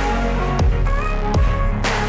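Electronic background music with a deep bass and a few sharp drum hits.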